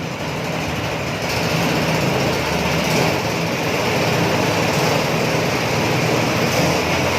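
Honda GX160 single-cylinder four-stroke petrol engine running steadily at speed, driving a rice thresher.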